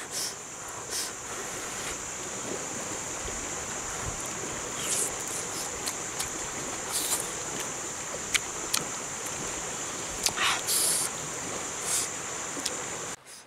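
Steady high-pitched drone of forest insects over the hiss of running river water, with a few brief smacking mouth sounds of eating and blowing.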